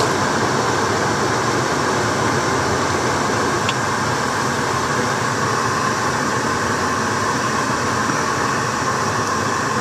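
Car heater blower fan running steadily, a constant rush of air through the dash vents; the fan is a little noisy.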